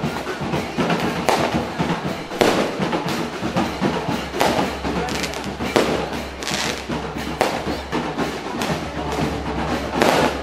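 Sharp bangs at uneven gaps, about one every one to two seconds, over music and a steady low hum.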